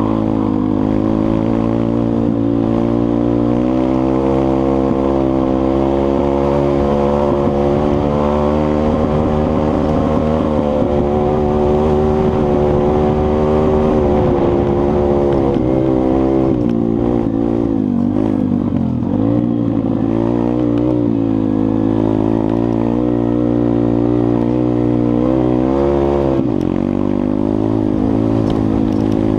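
Single-cylinder four-stroke pit bike engine running under way, heard close up from the bike being ridden. The engine note holds steady, wavers and eases off a little past halfway, and dips briefly near the end as the throttle changes.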